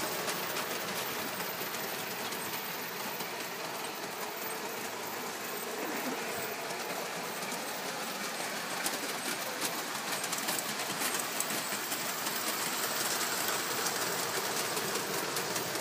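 O gauge tinplate model trains running on three-rail track: a steady rolling rattle with many small clicks, getting a little louder near the end as a train of coaches passes close by.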